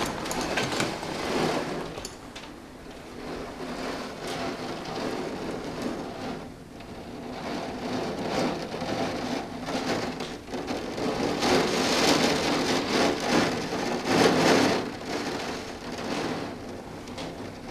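Heavy thunderstorm downpour beating on a window, swelling and easing in gusts. It is loudest around twelve to fourteen seconds in.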